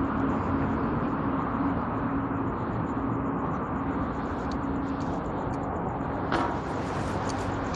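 Light-rail train running, heard from inside the car: a steady rumble of rolling noise with a low hum from the drive. About six seconds in there is one short, sharp squeak.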